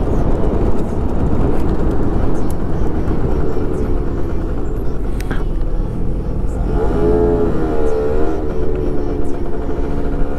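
Small scooter engine running while riding along a street, under a steady low rumble of wind and road noise. About six and a half seconds in, the engine note rises and wavers for a couple of seconds before settling back.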